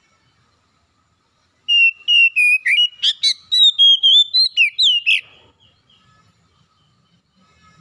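Oriental magpie-robin singing: a quick phrase of rich, gliding whistled notes with a few harsh clicks mixed in, starting about two seconds in and stopping after some three and a half seconds.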